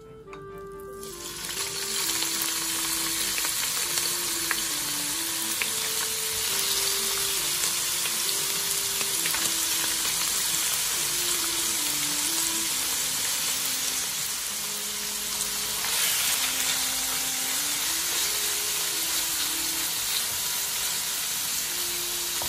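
Chopped raw bacon frying in hot oil in a wok, with a dense steady sizzle that rises sharply about a second in.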